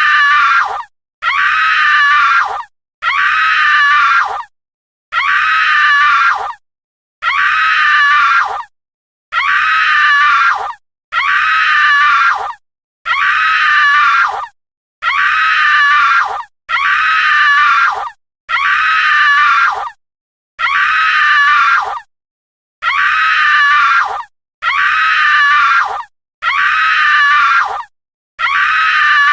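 A woman's high-pitched horror scream, about a second and a half long and dropping in pitch at the end, repeated about sixteen times with short silent gaps between.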